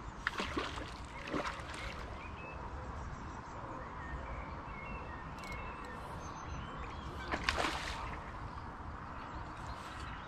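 A hooked fish splashing at the surface several times while being played close in: a few splashes near the start and the loudest about seven and a half seconds in. Short bird chirps sound faintly in between.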